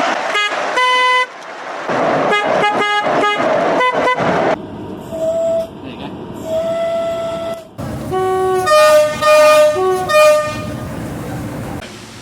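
British train horns sounded from inside the cab, in a run of edited clips. First come several short blasts, then a quieter stretch with a single held note, then a loud two-tone horn alternating low and high notes a few times around two-thirds of the way in.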